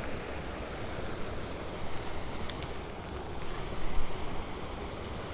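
Wind buffeting the microphone: a steady rushing noise with rumbling gusts and a couple of faint clicks.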